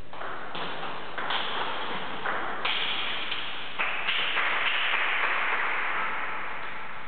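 Table tennis ball struck back and forth with paddles and bouncing on the table during a rally, over background noise that grows louder in the middle.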